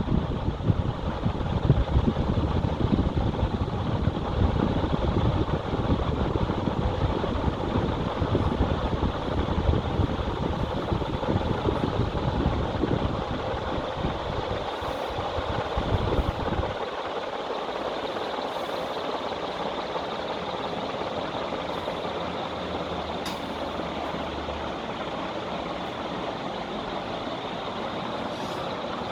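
Veto Gold ceiling fan with SMC-made Veto blades running, its airflow buffeting the microphone with a low, gusty rumble that drops away about 17 seconds in, leaving a steady whooshing hiss.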